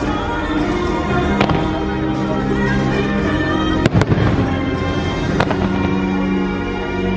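Fireworks going off over an orchestral show soundtrack. Sharp bangs come about a second and a half in, a quick cluster just before four seconds, and another about five and a half seconds in, over steady music.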